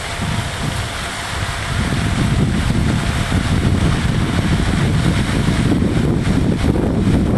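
Wind buffeting the microphone: a loud, gusting low rumble with hiss over it.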